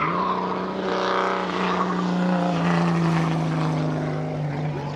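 Race car engines running hard at high revs, one car passing with its engine note falling in pitch over a couple of seconds.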